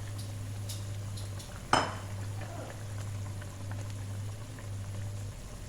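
Tauco sauce simmering and bubbling in a pan as it cooks with mackerel, tomato and chillies, over a steady low hum. About two seconds in, a utensil clanks sharply once against the pan.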